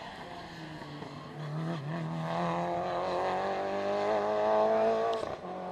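Rally car engine under hard acceleration as the car passes and pulls away, its pitch climbing and growing louder, then dropping away suddenly near the end.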